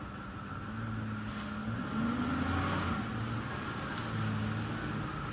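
Ford F-150 pickup's engine running as the truck creeps forward at low speed, with a short rise in engine pitch about two seconds in.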